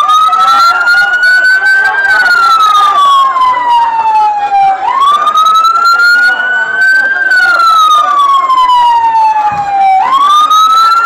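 A fire truck's siren wailing loudly. Each cycle jumps up, climbs slowly for about two seconds, then slides down for about three, and repeats about every five seconds, a little over two cycles in all.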